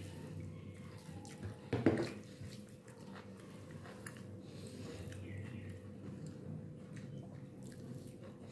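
Fingers mashing and mixing rice with curry gravy on a ceramic plate: soft, wet squishing, with one louder wet smack about two seconds in. A faint steady hum underneath.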